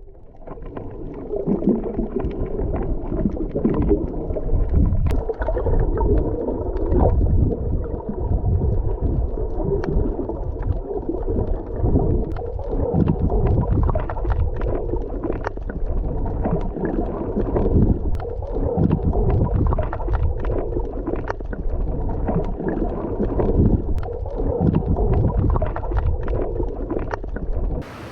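Underwater sound picked up by a submerged camera while snorkeling: muffled low rumbling and gurgling water, with scattered faint clicks.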